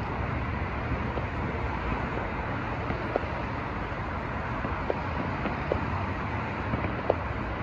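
Steady traffic and wind noise, with a few faint, sharp pops from distant fireworks spread through it.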